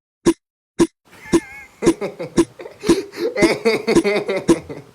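A steady beat of short, evenly spaced hits about twice a second. From about a second in, voice-like sounds with a wavering pitch come in over it.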